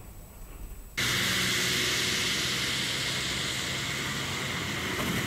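Faint road rumble that cuts off about a second in, replaced by a loud, steady hiss of rain and of vehicles driving through floodwater on a waterlogged road, with a low engine hum underneath.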